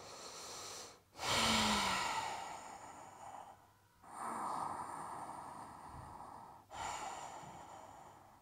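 A woman breathing deeply and audibly while holding a yoga bridge pose with her hips raised: about three long breaths, the loudest starting about a second in.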